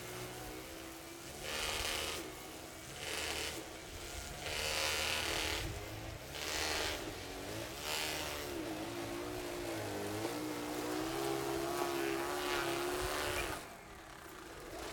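Remote-controlled single-stage snow blower prototype on a tracked R/C chassis running through fresh snow: its motors whine, rising and falling in pitch as the throttle changes, with repeated bursts of rushing noise. The sound cuts off about a second before the end.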